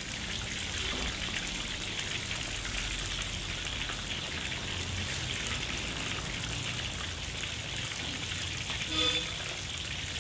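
Chicken thighs deep-frying in hot oil in a wok: a steady crackling sizzle of the bubbling oil, with a brief louder sound about nine seconds in.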